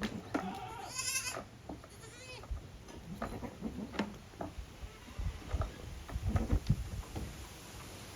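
Goats bleating: a quavering bleat about a second in, then a second, higher bleat a little later. Scattered knocks and low thumps follow in the second half.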